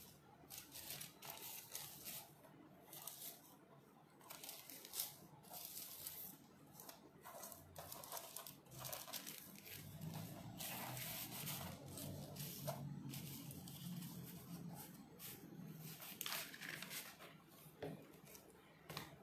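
Faint rustling and crinkling of thin Kores carbon paper sheets being handled, lifted and slid over a canvas board, in many short irregular scrapes.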